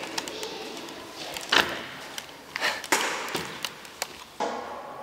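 A handful of irregular knocks and thuds. The loudest comes about one and a half seconds in, and the others come near three seconds and just after four.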